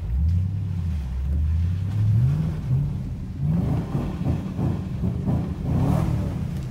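2011 Chevrolet Camaro SS V8 with Kooks headers and a cat-back exhaust, heard from inside the cabin as the throttle opens suddenly. A low exhaust note climbs in pitch about two seconds in, then rises and dips several times as the car accelerates.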